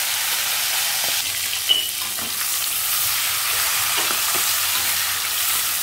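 Large prawns sizzling as they fry in hot oil in a wok, with a spatula scraping and tapping against the pan now and then.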